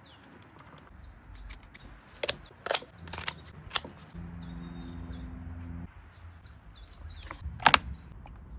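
Outdoor background with faint bird chirps, broken by several sharp clicks or knocks in two clusters. A low steady hum runs for about two seconds in the middle.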